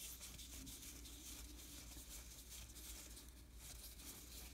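Faint, soft rustling and sliding of cardboard baseball cards being thumbed through by hand.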